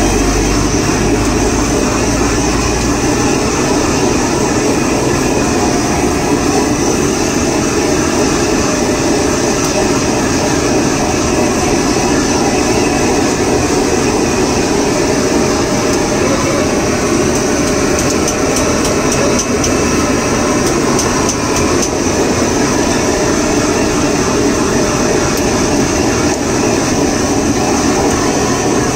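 Handheld gas blowtorch burning with a steady rushing hiss, held on without a break.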